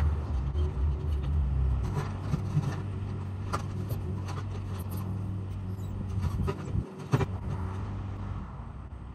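Mini excavator's diesel engine running steadily, heavier for the first couple of seconds, with scattered sharp knocks and scrapes of rock.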